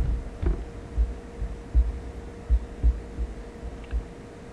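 Handling noise: irregular dull low thumps, about a dozen, as the recording device and the surface it sits on are bumped and handled, over a faint steady hum.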